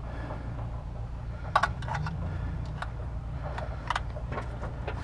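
A few short sharp clicks and light rattles from a hand handling hoses and parts under a truck's hood, over a steady low rumble.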